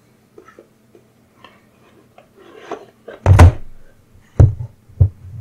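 A hand accidentally hitting the camera: one loud, dull thud about three seconds in, then two smaller knocks, after a few soft handling clicks and rustles.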